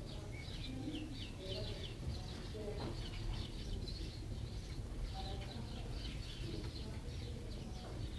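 Birds chirping repeatedly in the background, with some low cooing-like sounds.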